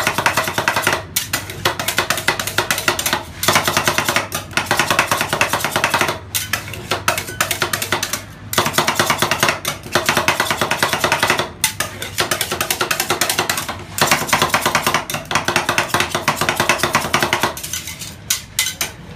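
Two steel spatulas chopping ice cream mix on a frozen stainless-steel pan: fast clattering metal strikes in runs of a few seconds, with short pauses between them.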